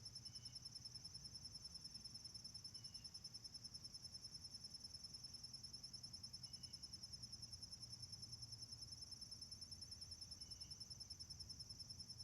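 Woods ambience: a steady, fast-pulsing high insect trill, with a few faint short bird chirps every few seconds over a low background rumble.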